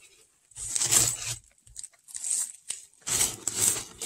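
Crumpled brown kraft packing paper rustling and crinkling in a cardboard box as hands dig through it, in three short bursts.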